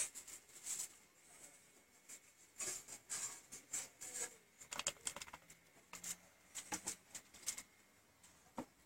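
Hand rubbing and dabbing paint onto a board: faint, irregular soft scuffs and pats, with a few sharper ticks.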